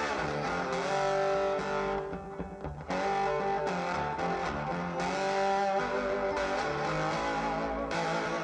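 Electric-guitar-led music played back through a homemade 10-litre bass-reflex speaker with a W 100 S woofer and an SC 10 N tweeter, its port tuned to 56 Hz. The music drops in level briefly about two seconds in, then carries on.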